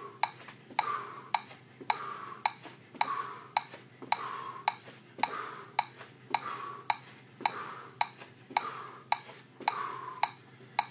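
Metronome clicking a steady beat, a little under two clicks a second, with a fainter hiss swelling between the clicks about once a second.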